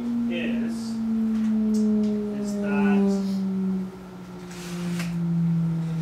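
Electric motor-generator test rig running with a steady whine whose pitch falls slowly and evenly as the rotor slows down. A short rustle comes about five seconds in.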